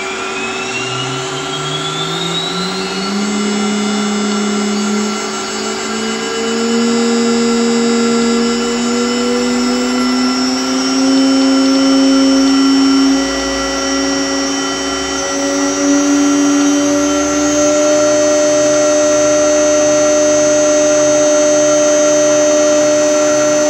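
MultiCam CNC router spindle spinning up, its whine climbing in several steps from a low hum to a higher pitch over about eighteen seconds and then holding steady, as it steps through speeds in its warm-up cycle.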